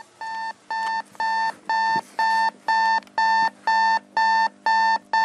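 Electronic alarm clock beeping: short steady-pitched beeps, about two a second, growing a little louder over the first second and then holding steady.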